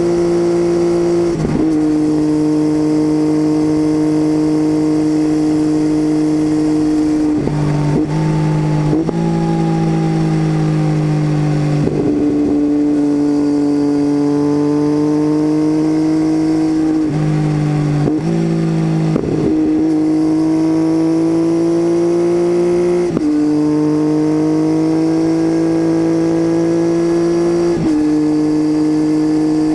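Triumph Tiger 800 three-cylinder engine running through an unbaffled titanium Leo Vince exhaust, picked up by a mic under the seat. The pitch breaks off abruptly several times as the rider changes gear, and rises or falls slowly between the changes.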